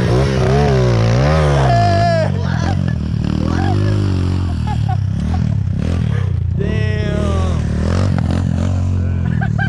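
Dirt bike engine running throughout, with the revs rising and falling a few times in the first second and a half.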